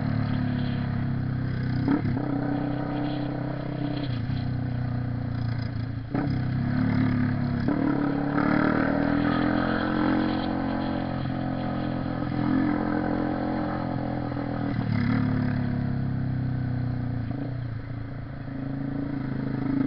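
Honda CB 300R single-cylinder four-stroke motorcycle engine running under way, its note stepping up and down several times as the throttle opens and closes and gears change.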